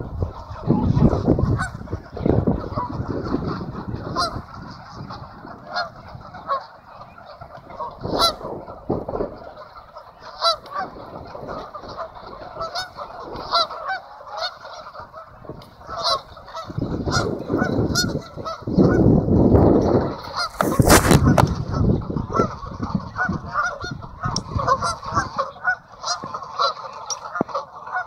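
A large flock of geese on the water honking continuously, many overlapping calls at once. Low rumbling bursts come and go, loudest near the start and again about two-thirds of the way through.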